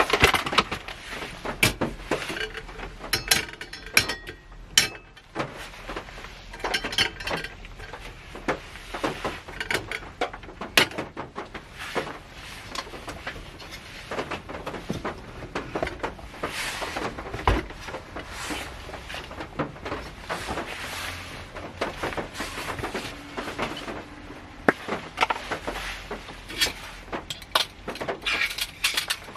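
Many irregular light taps, knocks and clinks inside a car's cabin, scattered through the whole stretch with no steady rhythm.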